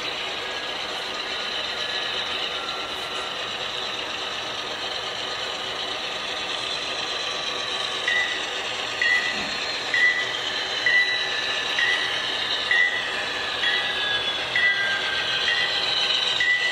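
Model diesel locomotive running steadily on a layout as it approaches. About halfway in, a short high bell ding starts repeating about once a second.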